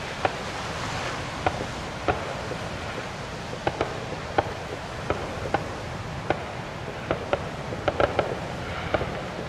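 Aerial fireworks shells bursting: a string of sharp bangs at irregular intervals, roughly one or two a second, with a quick cluster of three near the end, over a steady background rush.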